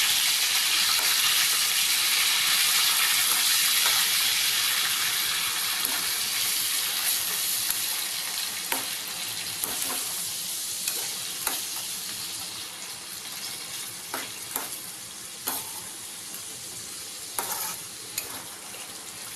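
Chicken keema with curd sizzling in hot oil in a pan while it is stirred. The sizzle is loud at first and dies down through the second half, where short knocks and scrapes of the spoon against the pan stand out.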